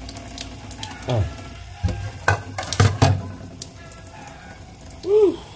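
Thin stream of tap water running into a stainless steel sink, with a few sharp knocks and clatters between about two and three seconds in as a plastic bowl and raw chicken egg bag are handled in the sink. A short hum-like voice sound comes near the end.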